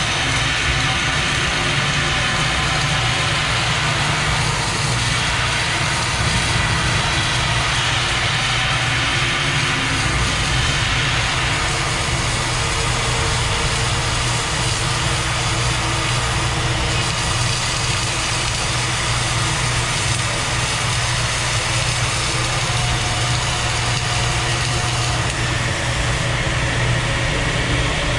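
Arc welding running without a break: a steady crackling hiss over a low machine hum.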